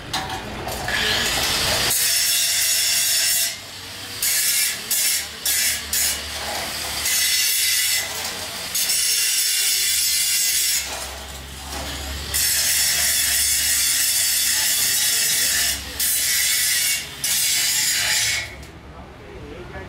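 Handheld angle grinder grinding a square-tube steel frame: a harsh, steady grind over the motor's hum that breaks off briefly several times as the disc comes off the metal and goes back on, and stops near the end.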